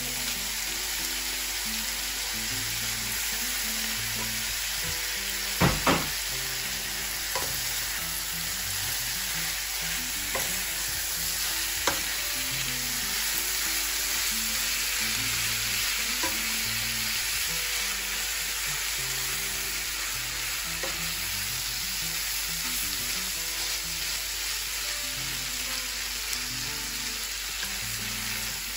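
Instant noodles with chicken, carrots and onion stir-frying in a hot frying pan: a steady sizzle while a spatula turns and scrapes the food. The spatula knocks against the pan now and then, loudest twice in quick succession about six seconds in.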